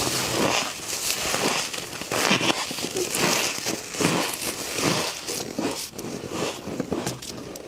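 Frost being bitten and chewed close to the microphone: near-continuous crackling crunches.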